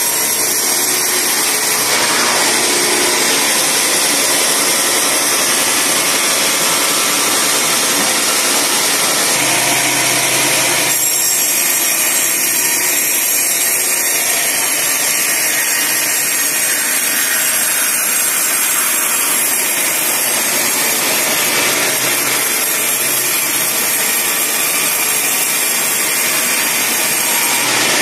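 Band sawmill running steadily, its blade sawing through a log.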